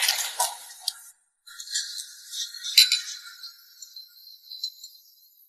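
Two stemmed drinking glasses clinking once in a toast, a sharp strike about three seconds in, amid faint high tinkling.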